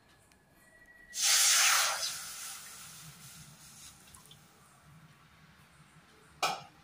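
Water poured from a steel pot into an aluminium kadai: a loud rushing splash starts about a second in and fades away over the next couple of seconds. A brief sharp noise comes near the end.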